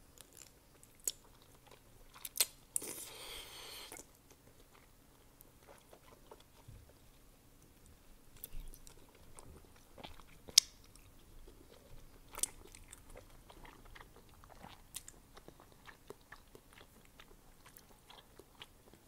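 Close-up eating sounds of chewy, slippery wide Korean glass noodles: a wide noodle is slurped in for about a second, about three seconds in, followed by soft wet chewing with scattered mouth clicks and smacks.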